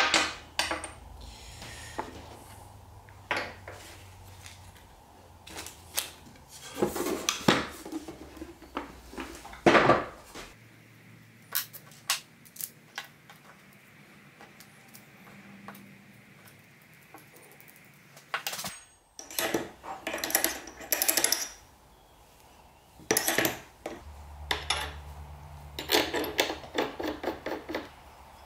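Irregular metallic clinks and clatter of steel router-bit parts (slot-cutter arbors, bearings, nuts) being picked up and set down, some in quick little runs.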